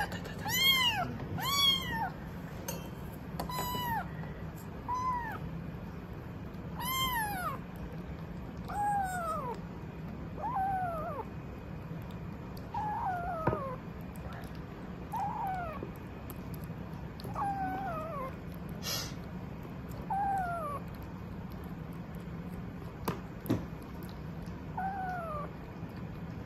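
Young kittens mewing over and over in short, thin calls, about one every second or two. The first few calls are louder. A steady low hum runs behind them.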